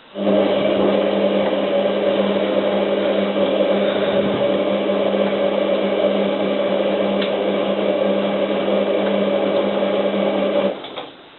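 Hotpoint 9534A washing machine's drum motor running steadily for a main wash tumble of about ten and a half seconds, a steady hum that stops abruptly near the end.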